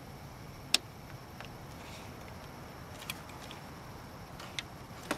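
A few short, sharp clicks and taps from hands handling small electrical wires, plastic wire connectors and a small metal pick tool, the loudest a little under a second in, over a steady low hiss.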